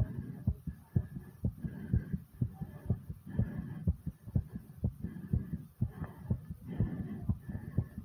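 A human heart beating fast and hard after squats, quick low thumps about two a second.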